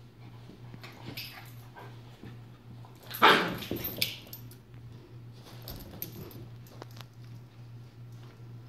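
Dogs at play: a sharp play bark about three seconds in, followed a moment later by a second, shorter one, amid quieter scuffling.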